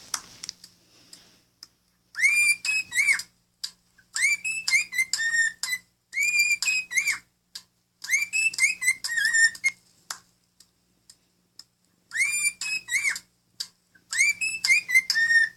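A whistled tune: the same short phrase of rising-and-falling notes, repeated about every two seconds with brief pauses between.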